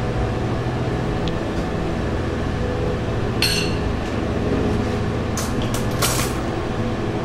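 Kitchen food-prep clatter: a short scrape about three and a half seconds in and a few sharp clinks of dishes or utensils a couple of seconds later, over a steady low hum.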